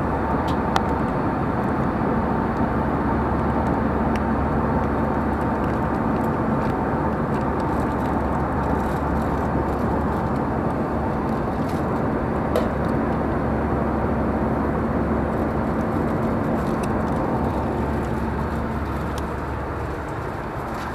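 Airbus A320 cabin noise in flight: a steady rushing drone with a faint hum running through it. A few faint clicks break in, one about a second in and another about halfway through.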